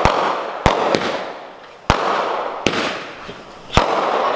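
Aerial fireworks going off: five sharp bangs at uneven spacing, each followed by a crackling hiss that fades before the next shot.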